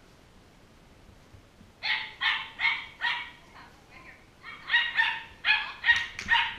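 Small dog barking in sharp, high-pitched barks: four about two seconds in, then a faster run of barks over the last two seconds.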